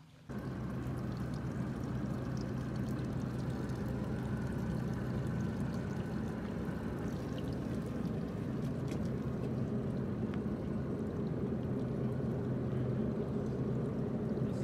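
Boat's outboard motor running steadily with a constant hum, together with rushing water and wind noise; it comes in abruptly just after the start.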